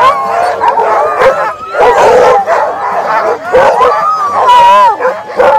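A team of harnessed sled dogs barking, yipping and howling all at once, many voices overlapping in a continuous clamour, typical of sled dogs at hook-up before a run.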